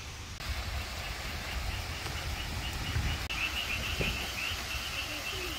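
Outdoor ambience: a steady hiss with an uneven low wind rumble on the microphone. From about a second and a half in, a rapid run of short, evenly repeated high chirps from a bird or insect.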